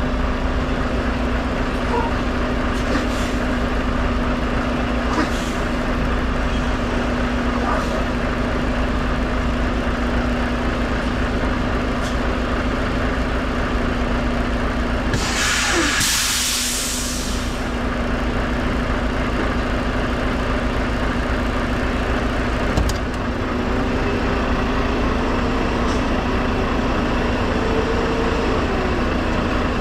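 Semi truck's diesel engine idling steadily with a constant hum. About halfway through, a burst of compressed air hisses out of a truck's air system for about two seconds.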